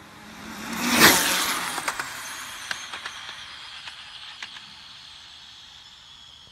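Traxxas Rustler RC car on a 6S Castle Mamba Monster 2 brushless setup with mod 1 gears making a high-speed pass: its motor and gear whine rises to a loud peak about a second in, then drops in pitch and fades as it speeds away down the road. A few sharp ticks come as it moves off.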